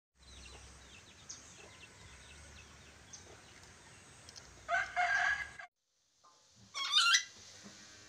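A lorikeet gives a loud, harsh screeching call about five seconds in, over faint background birdsong. After a short break, a second loud, wavering bird call sounds near seven seconds.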